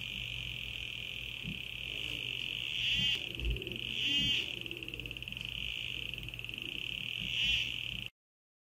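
Handmade air-core pinpointer metal detector sounding a continuous high, fast-buzzing alarm tone. The tone swells and warbles three times as the probe is held near coins, then cuts off suddenly near the end.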